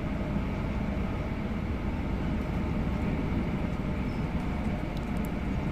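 Akita Shinkansen train running, heard from inside the passenger car: a steady low rumble of running noise with a faint steady whine above it.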